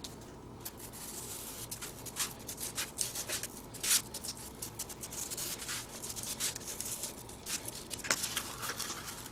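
Cardboard being cut through to make a hole: irregular scratchy rubbing and scraping with many small clicks, the sharpest about four seconds in.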